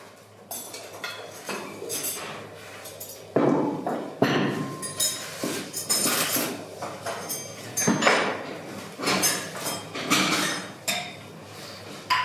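A metal ladle and ceramic tableware clinking and scraping as soup is ladled from a ceramic tureen into bowls. A string of knocks and clinks grows louder and busier from about three seconds in.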